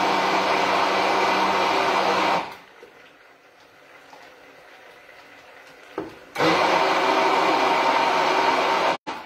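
Electric blender running in two bursts of a few seconds each, puréeing cooked asparagus stalks into a sauce.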